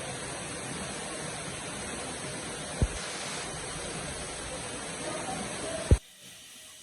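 Steady rush of falling water from a waterfall. Two short thumps come about three seconds apart, the second the loudest, and the rush cuts off suddenly near the end.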